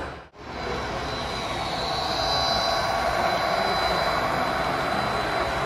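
Model train running on a layout: a steady motor and wheel hum with a thin high whine, growing a little louder about two seconds in. A brief dropout comes just after the start.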